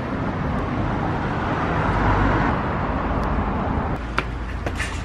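Road traffic: a car passing, its noise swelling to a peak about two seconds in and then fading. Near the end a few short taps come through, fitting footsteps on concrete.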